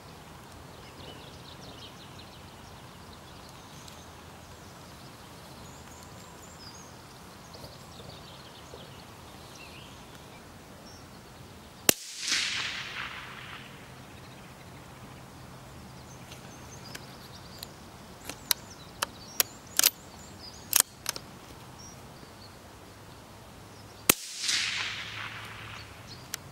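Two shots from a moderated CZ 455 bolt-action rifle in .17 HMR, about twelve seconds apart. Each is a sharp crack followed by a fading rush lasting about a second and a half. Between the shots comes a run of light clicks as the bolt is cycled.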